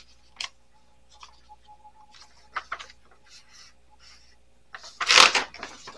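Paper rustling and light handling taps as the pages of an old notebook are turned and handled, with one louder rustle about five seconds in.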